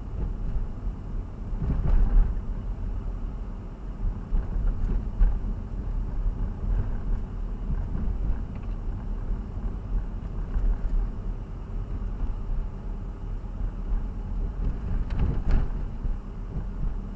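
Low, steady rumble of a moving vehicle, swelling louder about two seconds in and again near the end.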